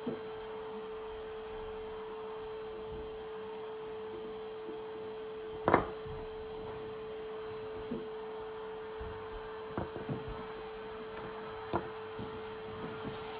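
A steady hum with one tone, under a few scattered taps and knocks from a knife and jackfruit seeds handled on a plastic-covered table. The loudest knock comes about six seconds in.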